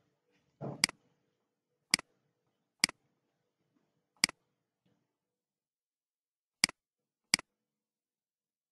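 Computer mouse clicking: six sharp, separate clicks at uneven intervals.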